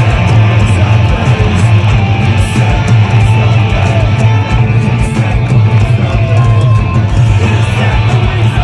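Live heavy rock band playing loud, with distorted electric guitars over rapid, pounding bass drum.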